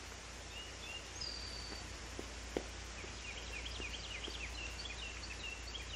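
Birds chirping outdoors over a steady low background rumble: a short whistled note about a second in, then a quick run of high chirps through the second half. One sharp click partway through.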